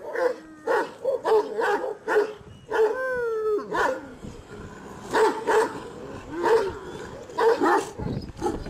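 Kangal shepherd dog barking repeatedly, short barks about two a second at first. About three seconds in comes one drawn-out call that falls in pitch at the end, then more barks in pairs and singles.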